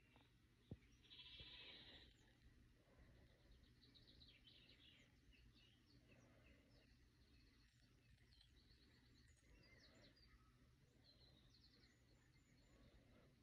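Near silence: quiet room tone with a low hum, faint high chirps and short rapid trills scattered throughout, and a single brief click under a second in.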